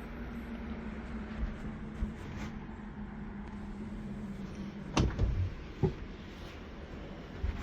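A steady low hum that fades out about four and a half seconds in, followed by a few sharp knocks and clunks, the loudest about five seconds in.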